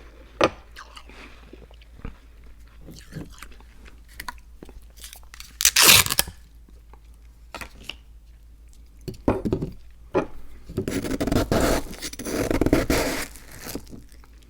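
Close-miked crunching and chewing of cookies: scattered small crunches, one loud bite about six seconds in, and longer bouts of chewing near the end.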